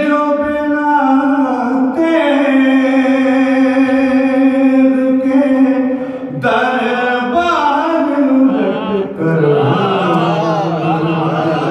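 A man's solo voice chanting an Urdu devotional elegy (kalaam) unaccompanied, holding long notes and breaking into wavering, ornamented runs in the last few seconds.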